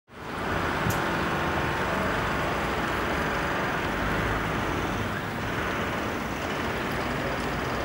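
Steady outdoor noise, a low rumble and hiss with no distinct events, fading in quickly at the start.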